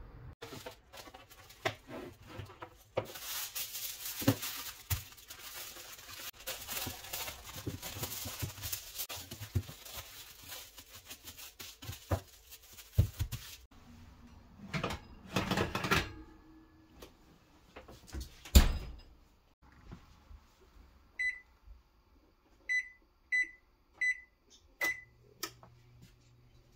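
Aluminium foil crinkling at length as it is wrapped around a wood slice. Then an oven rack slides and the oven door shuts with one loud thump. Five short beeps from a Samsung electric range's keypad follow as the oven is set to 175 degrees, and a low hum starts near the end.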